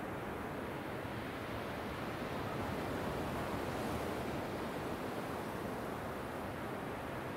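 Ocean surf breaking on a sandy beach and washing up the shore, a steady rush that swells a little a few seconds in.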